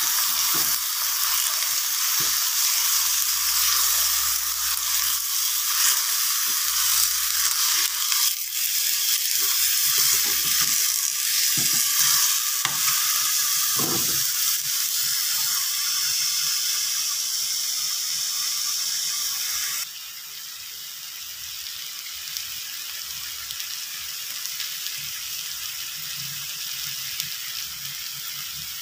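Spinach and split lentils sizzling as they stir-fry in a wok, with a spatula scraping and knocking against the pan now and then. About two-thirds of the way through the sizzle suddenly drops quieter and goes on steadily.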